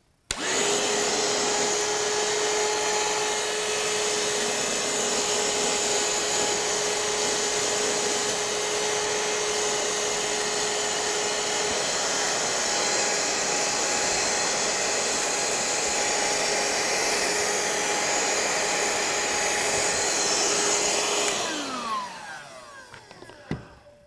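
RIDGID 18-volt compact hand vacuum (R860902, brushed motor) running with its crevice nozzle and extension tube, sucking up debris from carpet: a steady whine that is not too noisy. It is switched on at the start, runs evenly, and is switched off about 21 seconds in, the motor winding down with a falling whine.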